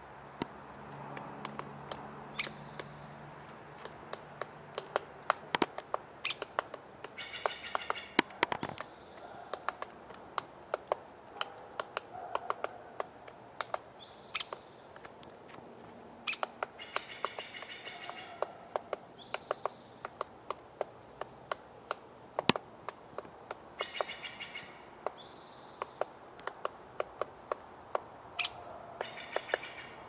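A woodpecker, which the uploader takes for a downy woodpecker, pecking at tree bark in irregular sharp taps. Another bird gives a harsh, chattering call four times, each lasting a second or two, with fainter bird calls in between.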